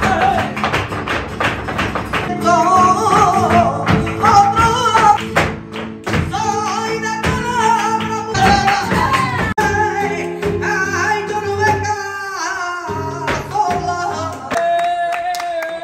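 Live flamenco: a singer's wavering, ornamented cante over Spanish guitar, with sharp hand clapping (palmas) and the dancer's footwork strikes.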